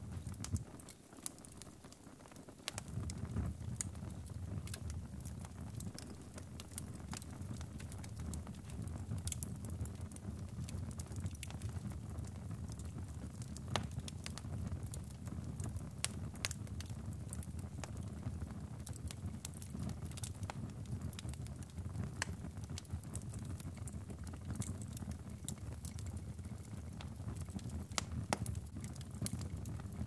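Wood fire burning in a fireplace: a steady low rumble of flame with scattered sharp crackles and pops from the burning logs. The low rumble drops away for about two seconds near the start, then returns.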